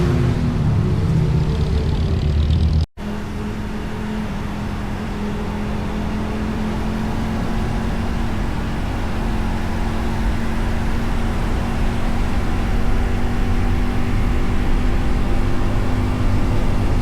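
Motorcycle engine and exhaust heard from the rider's position on the move. There is an abrupt cut a little under three seconds in, after which the engine holds a steady pitch and slowly grows louder.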